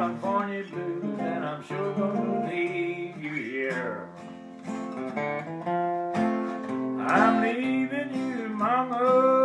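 Male country singer yodelling wordlessly in the blue-yodel style, his voice swooping up and down between notes, over a strummed acoustic guitar. The yodel is strongest in the last couple of seconds, ending on a held high note.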